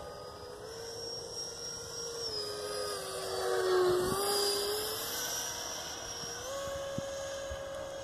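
Electric ducted fan of an RC foam jet (E-flite Viper 70mm on 6S) whining in flight, its pitch stepping up and down with the throttle. It grows loudest as the jet passes low about four seconds in, the pitch dipping as it goes by, then it settles into a steady, slightly higher whine.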